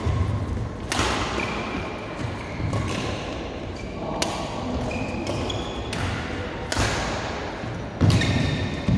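Badminton rally: about five sharp racket-on-shuttlecock hits, each a second or more apart, with short high squeaks of court shoes on the floor between them.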